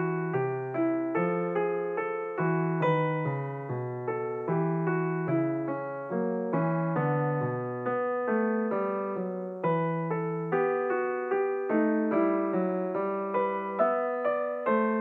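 Background music on piano: a steady run of notes, about two a second, each struck and fading.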